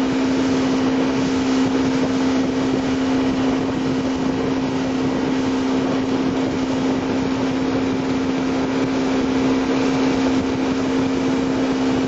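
Motorboat engine running steadily at speed while towing a water-skier, a constant hum, under a steady rush of wake water and wind.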